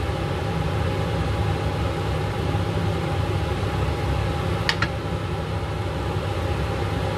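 Steady low machine hum with a faint constant whine above it, and a single light click a little before five seconds in.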